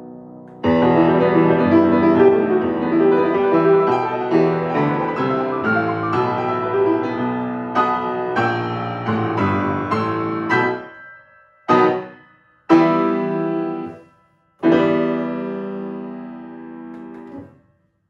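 Grand piano played solo: a loud, dense passage from about a second in, then the closing chords. A short chord, a strong one left to ring and die away, and a final held chord that fades until the keys are released near the end.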